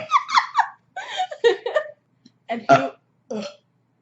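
A run of short, loud vocal sounds from people with no clear words: a quick cluster of bursts over the first two seconds, then two shorter separate bursts near the end.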